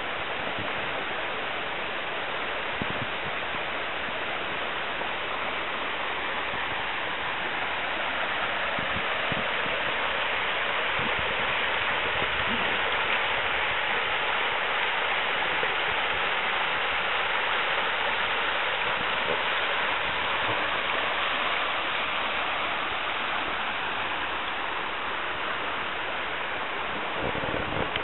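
Small river rushing over a stretch of white water: a steady, even rushing, a little louder in the middle.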